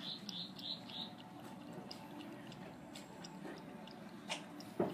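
Cat lapping water from a plastic bucket: soft, quick wet laps and small clicks, with a louder click near the end.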